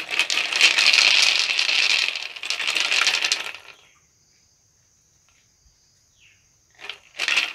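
Feather-decked ritual gourd rattle (maracá) shaken fast in a dense, steady rattle that stops abruptly about three and a half seconds in. After a pause with only a faint high steady tone, the rattling starts again near the end.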